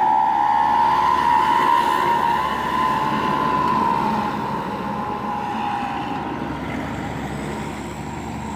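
A passing vehicle sounds one long, wavering high tone over road traffic noise. The pitch rises slightly, then sinks, and the sound fades as the vehicle goes by.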